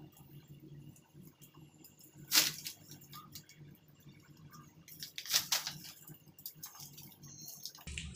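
White plastic water-pipe elbow fittings being pushed and worked into place by hand, with two short, sharp noisy sounds about two and five seconds in, over a low steady hum.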